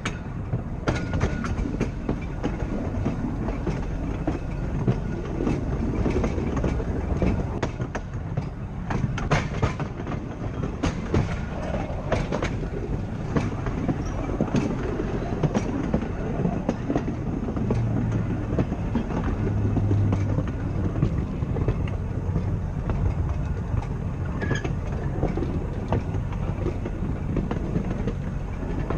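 Blackpool 'Boat' tram car 606 running along the track: a steady rumble of the wheels and running gear, with frequent irregular clicks and knocks as the wheels pass over the rail joints.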